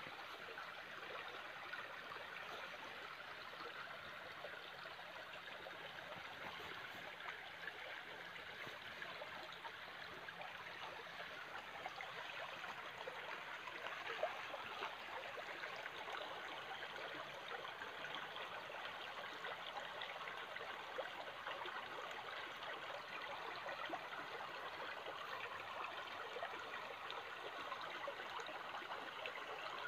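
A shallow stream flowing over stones and gravel, a steady wash of running water.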